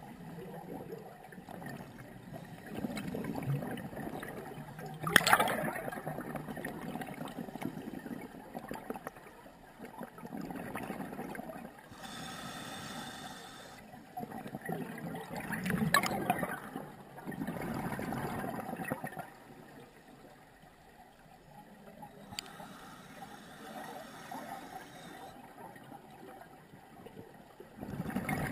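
Scuba regulator breathing heard underwater: exhaled air bubbling and gurgling out in bursts every several seconds, with quieter stretches between breaths.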